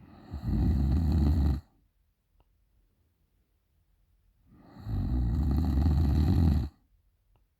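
A sleeping woman snoring loudly: two long, rasping snores about four seconds apart, the second longer than the first.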